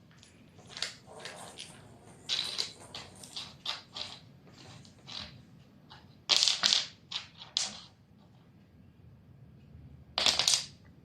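A kitten at play making irregular rustling, crinkling and scratching noises, with two louder flurries about six seconds in and near the end.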